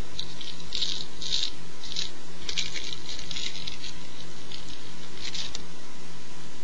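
Light crinkly rustling in short bursts, about eight of them in clusters over some five seconds, over a steady faint electrical hum.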